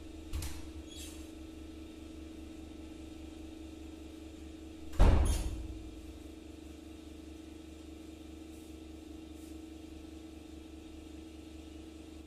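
Steady low hum with a faint steady tone over it, broken by a light knock just after the start and a single loud thump about five seconds in that trails off.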